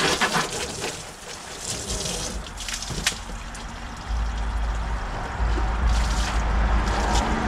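Soapy water splashing and dripping as a wet wash mitt is slopped and scrubbed over a car's body, with water running off onto the ground. A low rumble comes in about halfway through.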